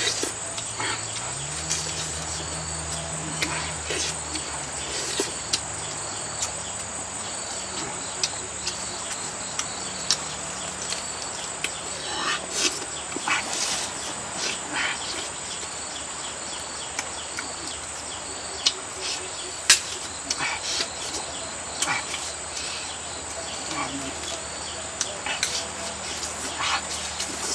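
A steady high-pitched insect drone, like crickets or cicadas, runs throughout. Over it come scattered short, sharp clicks and smacks of chewing and tearing roasted chicken meat, the sharpest one about two-thirds of the way through.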